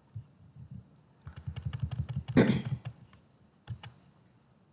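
Clicking and tapping at a computer keyboard and mouse: a quick run of soft clicks about a second in, one louder knock in the middle, and a couple more clicks a little later.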